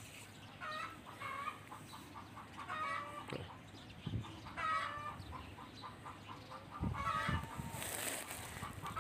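Chickens clucking in a series of short repeated calls, with a few low thumps of the phone being handled.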